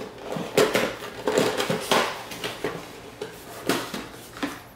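Rigid cardboard product box being handled and opened on a wooden desk: a series of sharp knocks and scrapes as the lid is worked open and the box shifts on the desk, the loudest about half a second in and near two seconds.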